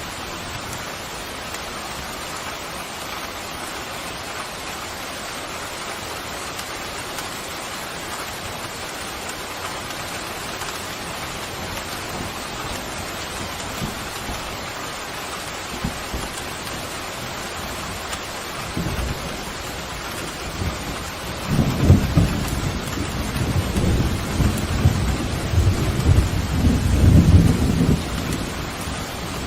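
Steady heavy rain, with a roll of thunder rumbling in about two-thirds of the way through, swelling and rolling for several seconds before it fades back under the rain.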